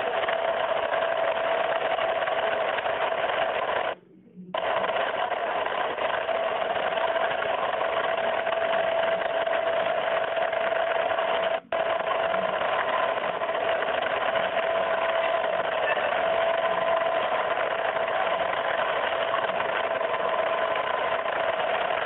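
Boat engine running steadily under way, a constant mechanical drone with a steady hum. It cuts out briefly about four seconds in and again for an instant near the middle.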